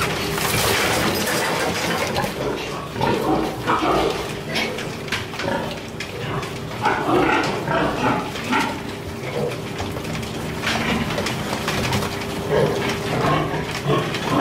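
Group of weaned piglets grunting and squealing as they crowd and feed at a trough feeder, with many scattered clicks and knocks. A faint steady hum runs underneath.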